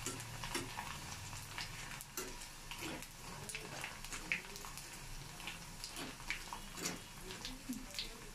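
Rice chips deep-frying in hot oil in a wire frying basket, a steady sizzle dotted with many short clicks and scrapes as a spatula stirs them against the wire.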